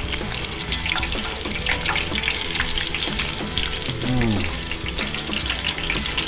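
Breaded beef strips deep-frying in hot oil: a steady bubbling sizzle full of small crackling pops. About four seconds in, metal tongs stir and turn the pieces, and a brief falling tone sounds.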